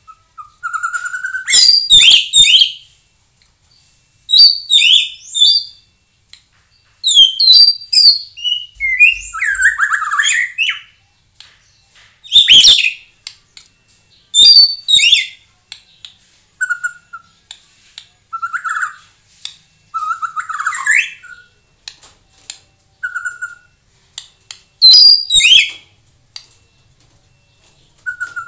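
White-rumped shama singing in loud, rapid phrases of varied high whistles and harsh chattering notes, with short pauses between them. Short, level whistled notes are mixed in.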